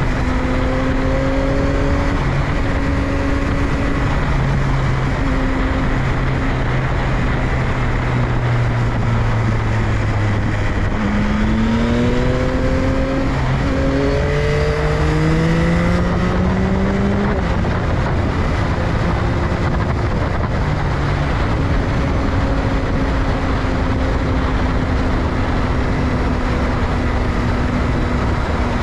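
Yamaha XSR900's three-cylinder engine under way, heard through heavy wind rush on the microphone. About a third of the way in, the engine note climbs in a few rising steps as the bike accelerates, then settles back to a steadier cruise.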